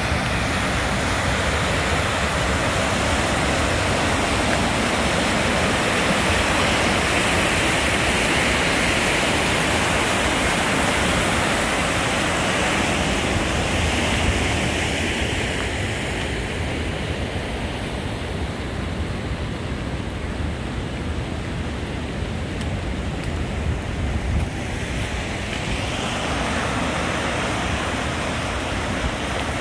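Floodwater of the River Des Peres rushing and churning through its concrete channel, a loud steady noise of water at flood flow. The higher hiss thins out for a while midway and comes back strongly near the end.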